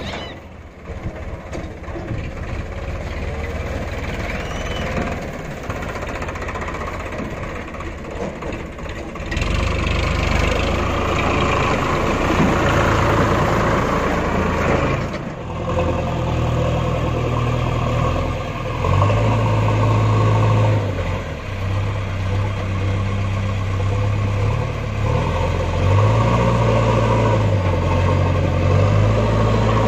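Heavy diesel engine running, getting louder about nine seconds in as it is revved, its note stepping up and down several times in the second half.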